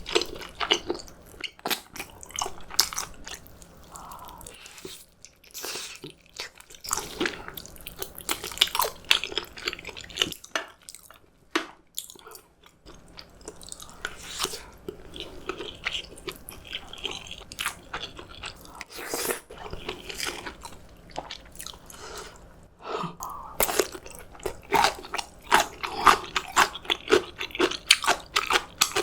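Close-miked eating sounds: a person chewing and biting food, with wet clicks and crunches. There are quieter pauses in the middle, and the chewing grows denser and louder near the end.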